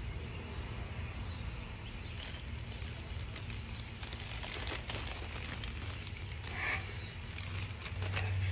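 Plastic mailer bag crinkling and rustling as it is handled and opened, a dense run of short crackles through the middle.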